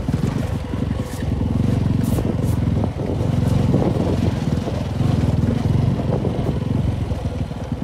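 Motorcycle engine running while the bike is ridden slowly over a dirt track, heard from the rider's seat: a steady run of firing pulses, dipping briefly about one and three seconds in.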